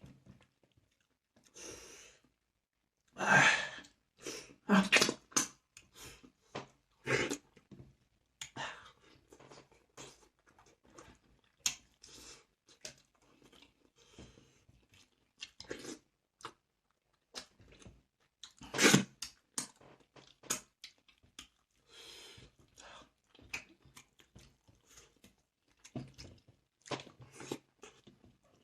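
Food being chewed and crunched close to the microphone: irregular crisp crunches and smacking bites, loudest in a run of bites about three to five seconds in and again near nineteen seconds.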